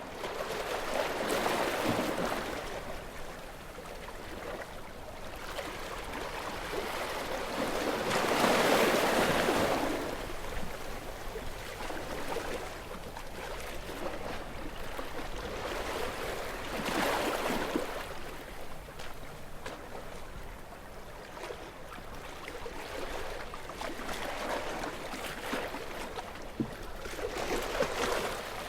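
Gentle waves washing onto a beach, each wave swelling into a soft hiss and then falling back, four waves several seconds apart, the one about eight seconds in the loudest.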